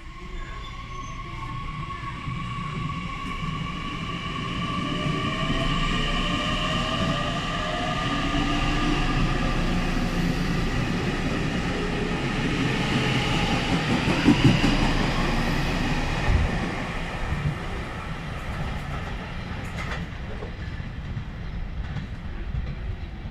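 JR Kyushu electric train pulling out of the station: its motor whine climbs in pitch as it speeds up over the running of the wheels on the rails. It grows loudest a little past halfway, with a few wheel knocks, then fades as it draws away.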